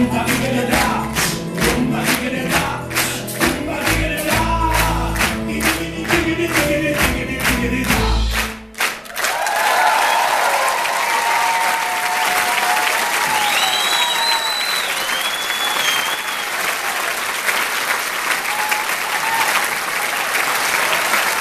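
A live band with singers plays the closing bars of a song in a steady pulse and stops abruptly about nine seconds in. Audience applause follows, with whistles and cheers.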